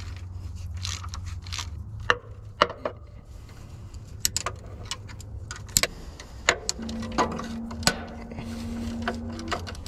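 Socket ratchet on a long extension loosening oil pan bolts from underneath, with irregular metallic clicks and knocks, some in quick runs of ratcheting.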